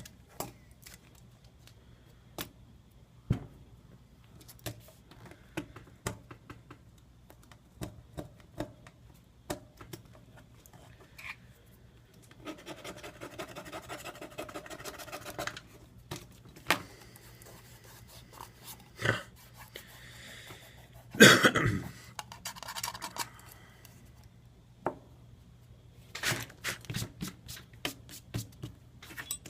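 Small hand tool scraping and picking old screen adhesive off a Samsung Galaxy S3's frame: scattered sharp clicks and scratches, a longer rasping scrape a little before halfway, and the loudest scrape about two-thirds of the way through.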